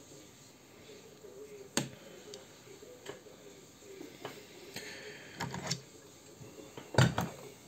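Scattered clicks and knocks of metal reloading tools and a shotshell being handled on a desk, the loudest a double knock near the end.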